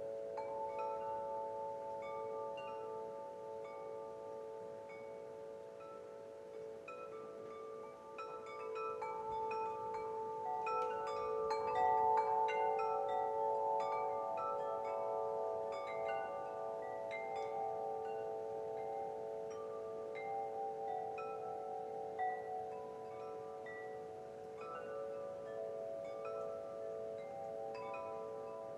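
Wind chimes ringing, with many overlapping tones struck in irregular clusters and left to ring on. They are busiest and loudest about ten to thirteen seconds in.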